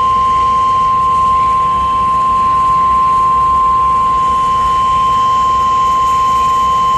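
NOAA Weather Radio 1050 Hz Warning Alarm Tone: one loud, steady, unbroken electronic tone, held at the same pitch and level throughout. It is the alarm that announces a warning broadcast, here a severe thunderstorm warning.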